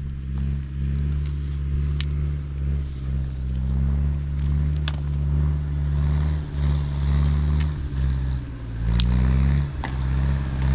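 A vehicle engine running steadily, with scattered sharp clicks and rattles. Its pitch rises briefly near the end.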